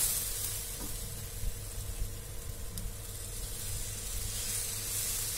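Semolina uttapam batter sizzling in hot oil on a nonstick pan as a ladle spreads it, a steady high hiss over a low hum.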